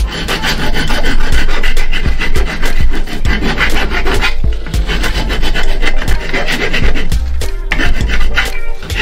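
Hand file rasping back and forth on a metal part clamped in a bench vise, in rapid strokes with brief pauses about four seconds in and near the end.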